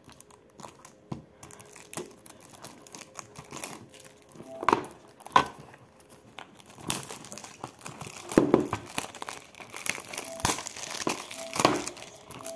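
Clear plastic shrink-wrap being torn and peeled off a DVD case, crinkling. Only a few crackles at first, then denser crinkling about halfway through.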